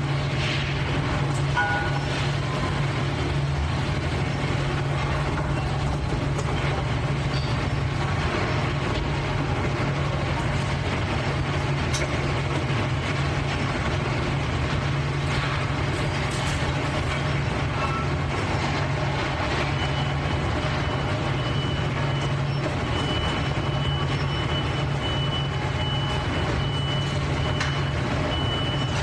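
Steady din of factory machinery, an even mechanical noise over a continuous low hum. A thin high tone sounds on and off through the last third.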